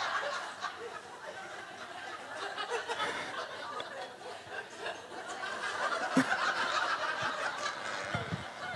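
An audience chuckling and laughing, with scattered murmurs, the laughter swelling again a little past halfway.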